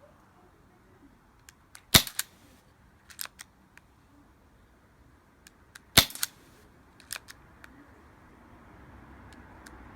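An HG 121 airsoft pistol firing two sharp shots about four seconds apart, with fainter light clicks and taps around them.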